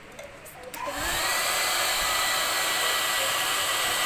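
Hand-held hair dryer switched on about a second in, blowing hot air on a ballpoint pen's nib to get it writing again. Its motor whine rises briefly as it spins up, then it runs steadily.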